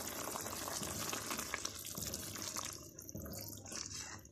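Chicken vegetable soup bubbling at a simmer in a pan while a spoon stirs it, liquid sloshing and crackling; the stirring works in cornflour to thicken the soup. It grows quieter about three seconds in.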